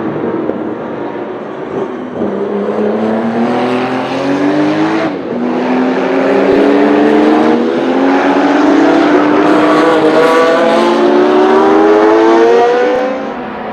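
A 1979 Porsche 935 Kremer K3's 3.2-litre twin-turbo flat-six accelerating hard through the gears. The engine note climbs and drops back at each of several upshifts and grows louder, then fades away near the end.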